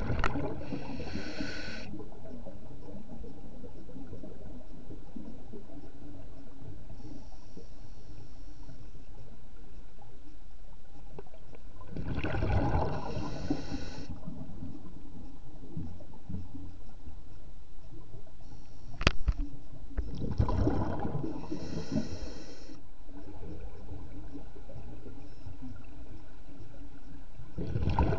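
A scuba diver breathing through a regulator, heard underwater: a rush of exhaled bubbles comes every several seconds, with a sharp click about 19 seconds in.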